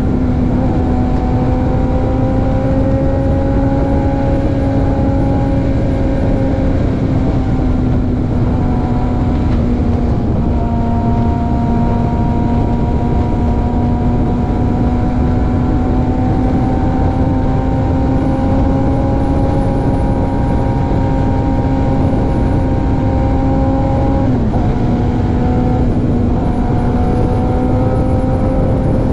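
Suzuki GSX-R 750 inline-four running at a steady highway cruise under heavy wind and road noise, its engine tone holding level. There is one brief dip in the engine note about 24 seconds in.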